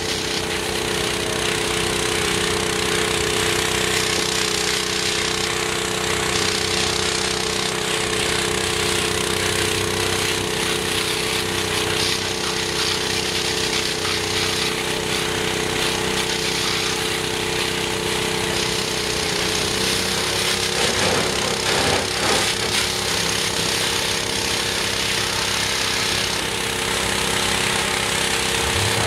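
Pressure washer running steadily, its spray hissing against the mud truck's tires and frame, the hiss changing as the spray moves from spot to spot.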